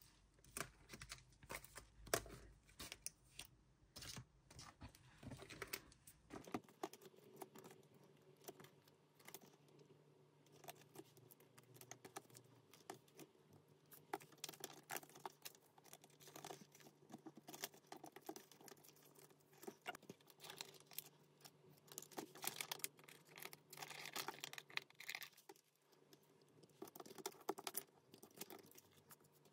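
Faint handling of photocards and plastic binder sleeves: scattered soft taps, clicks and crinkles at an irregular pace.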